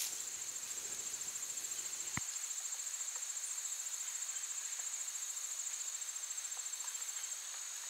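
Insects trilling steadily at a high pitch, with one faint click about two seconds in.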